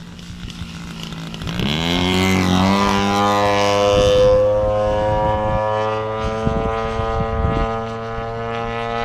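Gee Bee RC model airplane's motor and propeller rising in pitch about a second and a half in, then holding a steady, loud note.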